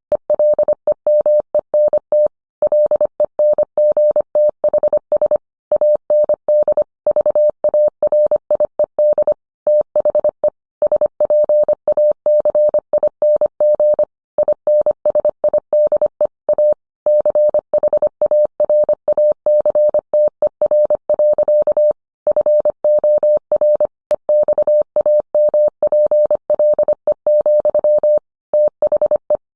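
Morse code sent as a single steady mid-pitched tone, keyed on and off in quick dits and dahs, with short gaps between characters and longer pauses between words.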